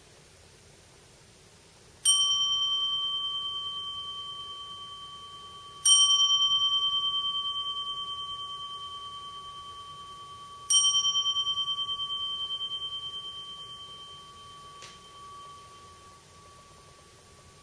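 Small hand-held Zen bowl bell (inkin) struck three times with a striker, about four to five seconds apart. Each stroke rings with a clear, steady tone that fades slowly. It is the bell that marks the transitions between sitting, bowing and walking meditation. A light knock comes near the end.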